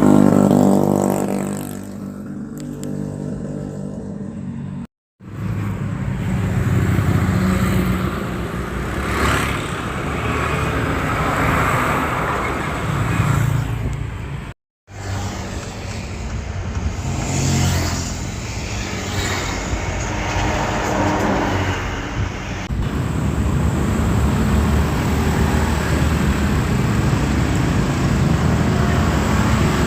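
Road traffic: cars and motorcycles passing on a busy road, each engine swelling and fading as it goes by over a continuous rumble. The sound cuts out completely for a moment twice, about five and fifteen seconds in.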